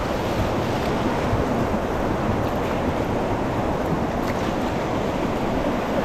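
Whitewater rapids rushing steadily around an inflatable raft, with wind buffeting the microphone.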